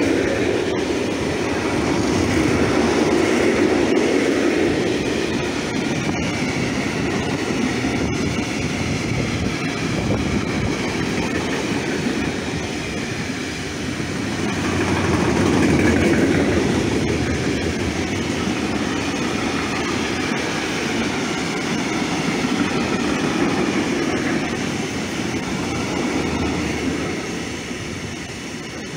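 Freight wagons (hoppers, covered vans and tank wagons) rolling past close by: a steady rumble and rattle of wheels on rail, swelling and easing as the wagons go by and fading a little near the end.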